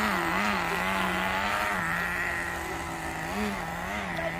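Nitro RC car's small two-stroke engine running steadily with a buzzing note, given quick throttle blips that raise its pitch briefly twice near the start and twice again about three and a half seconds in.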